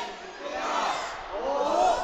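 Rowdy youngsters in a crowd yelling and whooping: several loud, drawn-out shouts that rise and fall in pitch.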